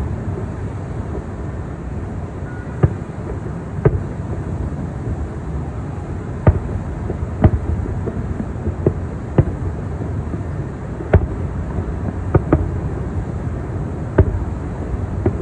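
Distant aerial firework shells bursting: about a dozen sharp bangs at irregular intervals, some close together in pairs. Under them runs a steady low rumble.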